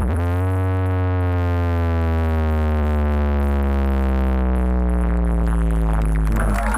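Electronic dance music on a large sound system: one long held synthesizer note over heavy bass, its pitch sliding slowly downward, before the busier beat comes back in near the end.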